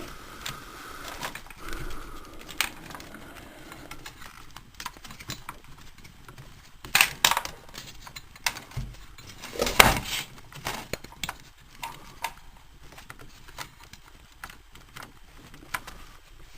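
Irregular small clicks, rattles and taps of hands working insulated wires and cable ties on a car amplifier, with louder knocks about seven and ten seconds in.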